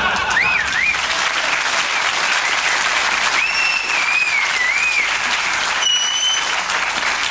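Studio audience applauding steadily, with a few high, wavering whistles over the clapping.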